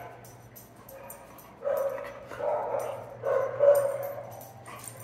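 Dog barking several times in a quick run, starting about a second and a half in.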